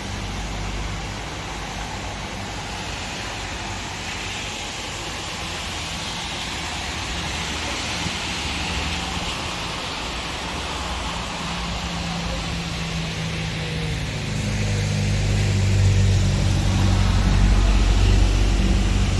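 Steady rain and wind, with a vehicle engine running underneath as a low hum that grows louder in the last few seconds.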